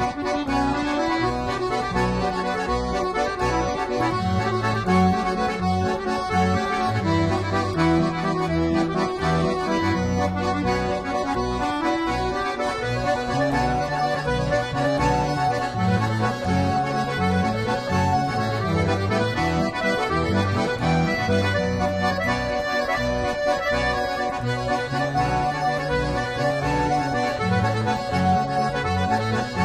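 Background music led by an accordion, playing steadily, with low notes changing underneath.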